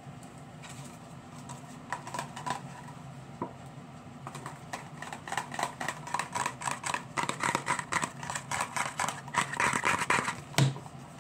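Crinkling and rustling of a white packet handled close to the microphone: a few scattered crackles at first, then a dense run of quick crinkles from about halfway in, ending in a low thump.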